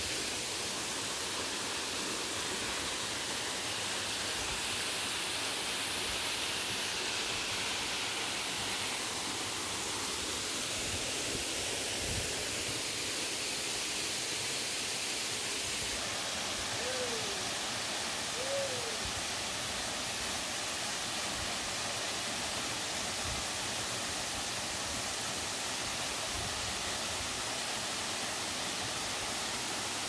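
Steady rush of a waterfall and stream, an even hiss with no break. Just past halfway two brief sliding calls rise and fall above it.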